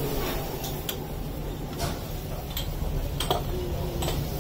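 Chai sizzling and bubbling as it froths up and boils over in a clay kulhad pre-heated in a tandoor, over a steady low hum. A handful of sharp ticks sound at uneven intervals.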